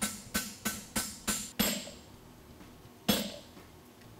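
Farrier's hammer striking a hot steel horseshoe on the anvil. First a quick run of six ringing blows, about three a second, then a pause and one single heavier blow about three seconds in.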